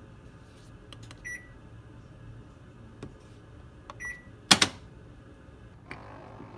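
Drum washer-dryer control panel: a button click and a short electronic beep about a second in, then another click and beep about four seconds in. A loud clunk follows as the detergent dispenser is opened, and near the end liquid detergent starts pouring into it.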